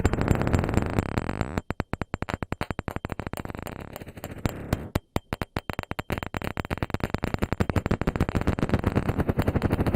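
Radar signal played as audio: a rapid electronic pulse train, a harsh buzzing rattle, that thins out and briefly drops away about two seconds in and again around five seconds before building back up.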